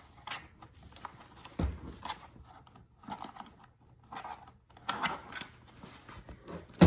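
Infant car seat being handled: the fabric cover rustling and the plastic shell knocking, with a soft thump a couple of seconds in and a sharp knock near the end.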